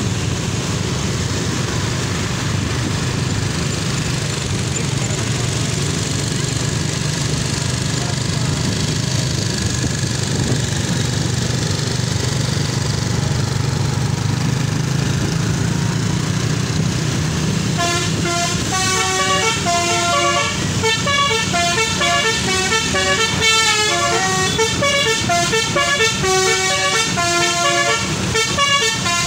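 A steady engine hum, then about eighteen seconds in a Basuri telolet bus horn starts playing: a multi-trumpet air horn sounding a fast tune of notes that step up and down in pitch several times a second.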